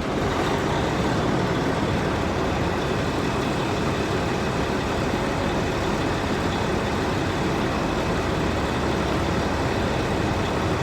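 Steady engine noise of an idling heavy vehicle, running evenly with no change.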